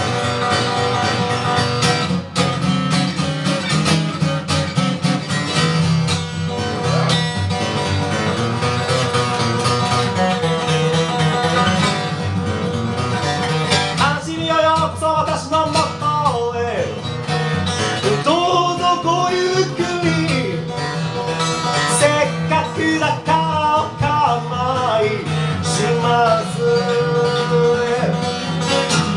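A Martin D-18 Authentic steel-string acoustic guitar is strummed and picked steadily through a song. About halfway through, a man's voice sings over the guitar for stretches.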